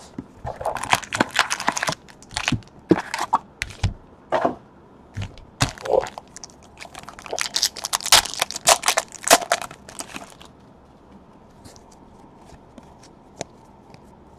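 Plastic wrap and cardboard of a sealed trading card box being torn and crumpled open, a dense crackling and tearing for about ten seconds. After that only a few light ticks of cards being handled.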